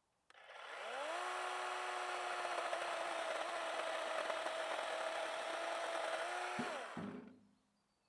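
Chainsaw speeding up, running at a steady high speed for about six seconds, then released and winding down to a stop.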